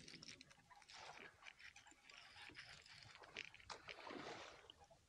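Faint, irregular water splashing and sloshing, with scattered small knocks.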